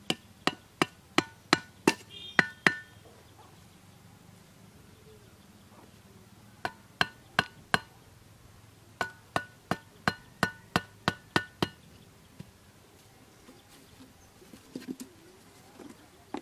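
A wooden stake being driven into soft mud with blows from a curved metal blade. The blows come as sharp knocks with a short metallic ring, about three a second, in three runs: about eight strikes, a pause, four strikes, then about eight more.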